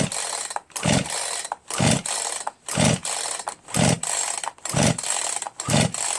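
Poulan Pro PR4218 42cc two-stroke chainsaw being cranked over and over on its recoil pull starter, about one pull a second, without firing. Its piston, rings and cylinder wall are badly scored, leaving it with very low compression.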